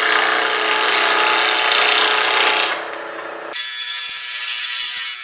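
A gouge cutting into a spinning square blank of elm burl and cast resin on a wood lathe, taking off the corners, with the lathe running under it. The cutting eases briefly a little before halfway, then comes back abruptly.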